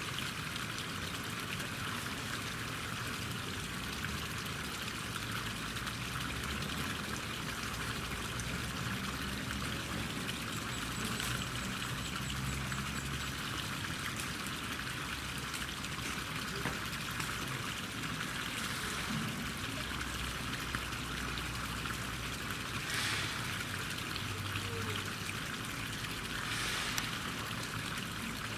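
Steady hiss of running water, with a faint low rumble partway through.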